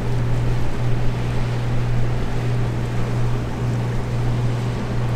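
A boat's engine running with a steady low drone, under a rush of wind and water noise.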